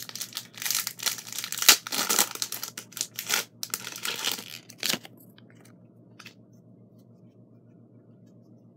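Foil wrapper of a Pokémon TCG Generations booster pack being torn open and crinkled in the hands, a dense run of ripping and crackling that stops about five seconds in.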